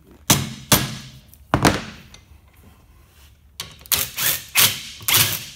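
Three sharp hammer knocks on a screwdriver wedged behind a seized mower blade bolt, then, from about three and a half seconds in, a Ryobi cordless impact driver hammering on the bolt in short bursts.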